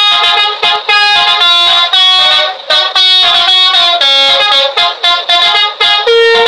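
A bus's basuri musical horn (telolet) playing a fast, lively melody of short, loud notes in quick succession.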